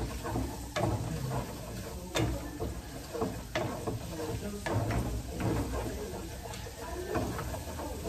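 Wooden spatula stirring food in a nonstick frying pan on a gas burner: irregular scrapes and taps against the pan over a light sizzle of frying.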